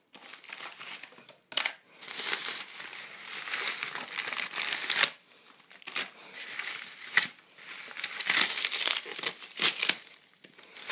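Plastic bubble wrap crinkling and rustling as it is handled and pulled away from packed parts, in irregular bursts with a short pause about five seconds in.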